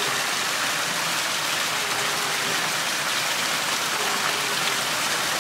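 Steady hiss of water, an even noise without distinct splashes or breaks.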